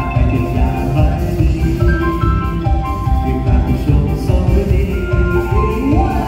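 Live band playing an instrumental passage: a stepping melody line over bass and drums keeping a steady beat, with a note sliding upward near the end.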